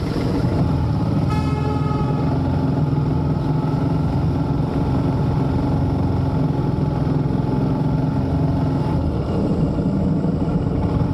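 Motorcycle engine running steadily under way, with wind rushing over the microphone. A brief horn toot sounds about a second and a half in.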